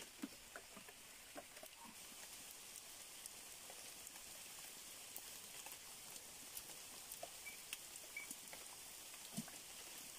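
Faint light rain pattering on wet leaves, with scattered drips and small ticks over a steady hiss.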